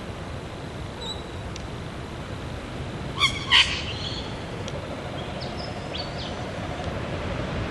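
Eastern whipbird calling: two loud, sharp notes in quick succession, followed about two seconds later by a few faint short high chirps.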